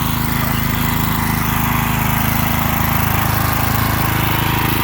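Commercial pressure washer's engine running steadily, with a constant hiss over it.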